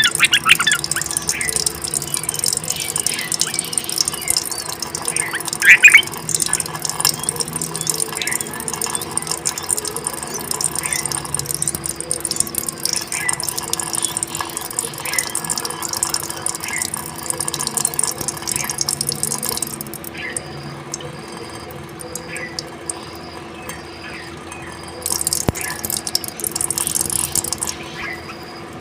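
Bulbul calls: a louder call near the start and another around six seconds in, then short chirps repeating about once a second. A high steady hiss behind them stops about twenty seconds in and comes back briefly near the end.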